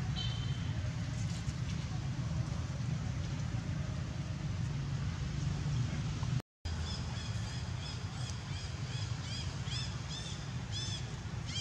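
A steady low outdoor rumble. After a brief dropout about six and a half seconds in comes a run of short, high, arching chirps, about two a second, getting louder toward the end: animal calls.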